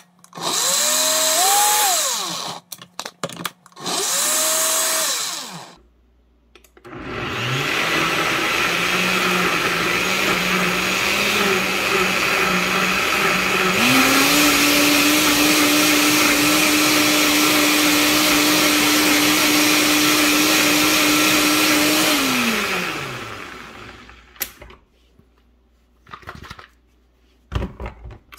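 NutriBullet blender blending a marinade: a few short pulses, then a continuous run whose motor pitch steps up about halfway and holds steady before the motor winds down. A few light clicks follow near the end.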